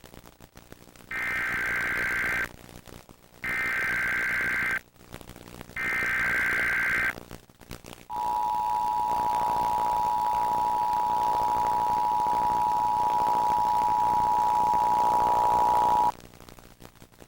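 Emergency Alert System header: three short bursts of warbling digital data tones (the SAME header), followed by the two-tone EAS attention signal held steady for about eight seconds. They mark the start of an alert broadcast, here a coordinated monthly test.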